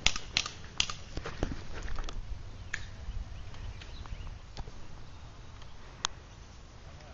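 Footsteps on grass and knocks of handling noise on a handheld camera, coming as a quick irregular run of knocks over a low rumble for the first two seconds. After that they thin out to a few scattered clicks.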